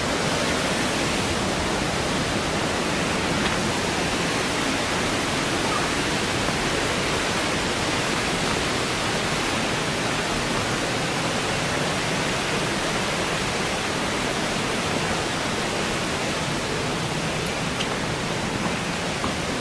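Steady rushing of running water, an even, unbroken roar that neither rises nor falls.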